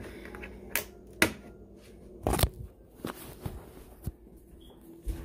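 Handling noise: a series of sharp clicks and knocks from a plastic gallon water jug being capped and handled, and from the phone being moved. The loudest knock comes about two and a half seconds in.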